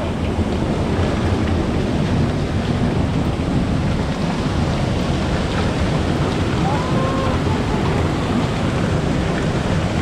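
Mountain stream water rushing over rocks, a steady loud noise.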